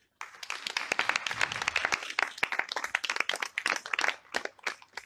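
Audience applauding, a dense patter of many hands clapping that thins to a few scattered claps near the end.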